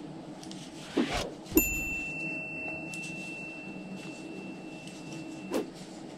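Sound effect for an on-screen subscribe animation: a whoosh about a second in, then a sharp ding whose single high tone rings on for about four seconds, and another whoosh near the end.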